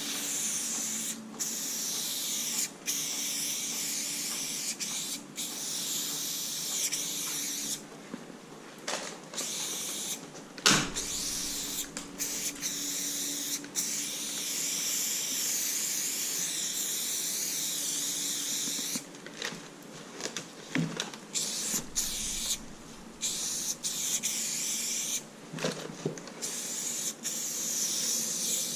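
Aerosol spray-paint can spraying in long hissing passes, stopping briefly between strokes. A sharp knock about a third of the way in.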